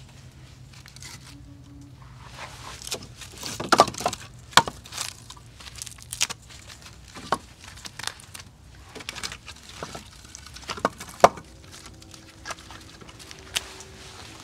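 Split oak and pecan logs catching fire in an offset smoker's open firebox, crackling and popping at irregular intervals, with a few sharper, louder snaps.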